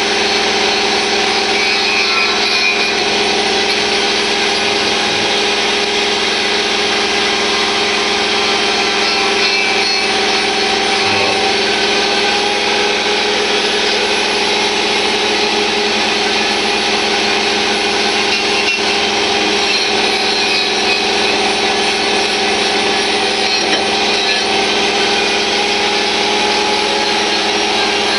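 Handheld power tool running without a break, stripping paint off metal brackets: a steady motor whine over a continuous abrasive grinding hiss.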